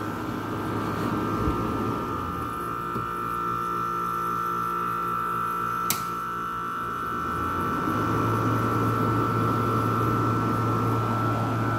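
GE window air conditioner running with a steady high-pitched whine; a knob clicks about six seconds in, and about two seconds later a low hum sets in and the unit gets louder.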